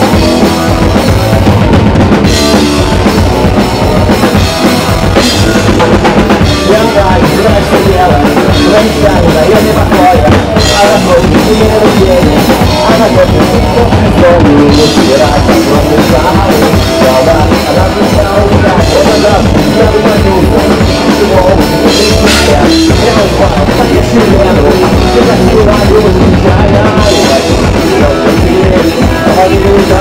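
Loud live emo-punk rock band playing: electric guitar, bass guitar and drum kit together, with no break.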